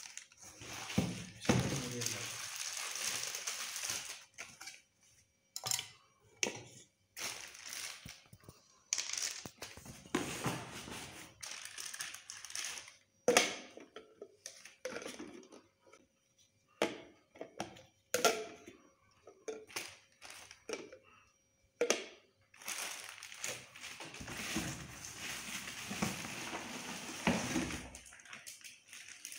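Handling of a Butterfly Rapid mixer grinder's steel jars and plastic lids: a string of sharp clicks and knocks as lids are fitted and jars set down, between stretches of crinkling plastic packaging.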